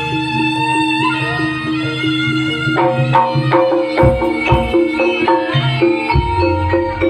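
Live Javanese jaranan music: a held high melody line, bending in pitch about a second in, over steady ringing tones. Quick percussion strikes join about three seconds in, with deep drum hits about four and six seconds in.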